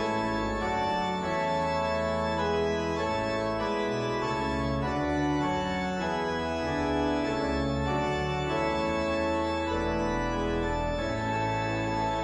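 Pipe organ playing held chords over deep bass notes, the harmony changing every second or so.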